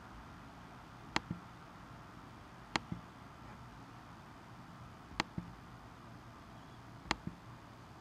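Computer mouse button clicked four times, each a sharp click followed a fraction of a second later by a softer one, the press and release of the button, over a faint steady hiss.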